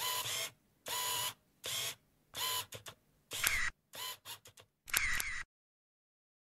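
Single-lens reflex camera shutter firing again and again. There are single shots at first, then quick runs of several frames, and it stops about five seconds in.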